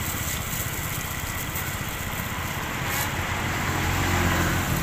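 A motor vehicle's engine running steadily, a low rumble that grows louder near the end.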